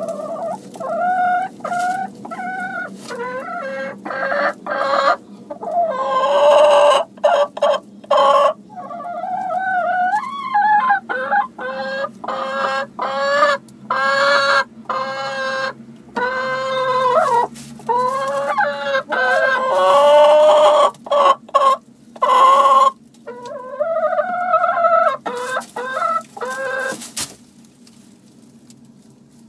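Domestic hens clucking and calling, a near-continuous run of loud, drawn-out calls that dies down near the end.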